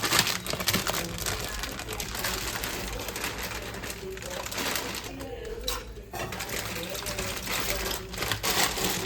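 Kitchen tap running water into the sink as a steady hiss, cut off near the end, with a short drop about five and a half seconds in.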